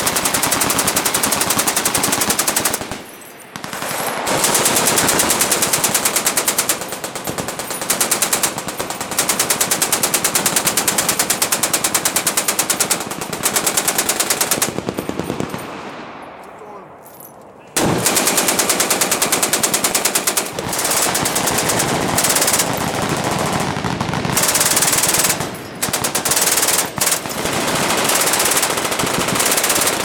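Fully automatic machine-gun fire in long bursts, the shots running together almost without a break. It drops away briefly about three seconds in, fades out for a couple of seconds past the middle, then resumes abruptly.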